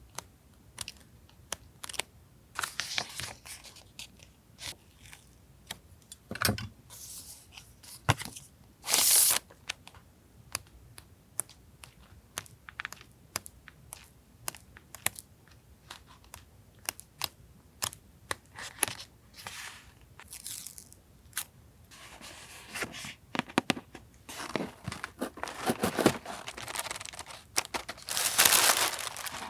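Stationery packaging of paper and plastic being handled and opened: crinkling and tearing among many light taps and clicks. The crinkling grows longer and louder over the last several seconds.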